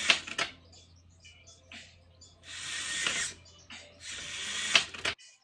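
Hobby servo motors in the forearm of a 3D-printed InMoov robotic hand whirring in bursts, one ending about half a second in and two more of about a second each, with a click as each stops. The servos swing the finger horns 180 degrees to close and open the fingers whenever the EMG sensor picks up a forearm muscle signal.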